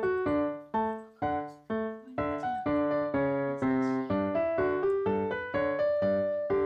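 Background piano music: struck notes and chords in a steady rhythm, each decaying before the next.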